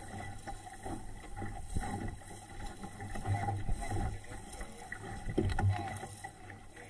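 Water splashing and sloshing against the hull of a small home-built SCAMP sailboat under sail, coming in uneven surges, with wind rumbling on the microphone.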